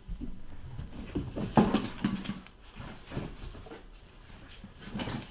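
Cardboard card boxes being handled and marked, with scattered light knocks and rubbing.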